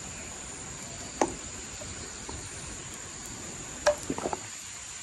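Quiet ambience: a low hiss with a thin, steady high-pitched tone, broken by a few sharp clicks about a second in and near four seconds.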